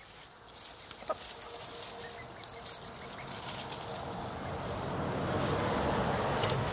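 Hens clucking as they scratch and peck, with a short call about a second in and a rustling noise that grows louder through the second half.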